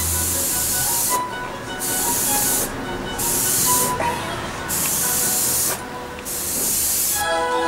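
Sata Graph 3 airbrush with a 0.2 mm nozzle spraying paint in four separate hissing bursts, each one to two seconds long, with short pauses between as the trigger is pressed and released.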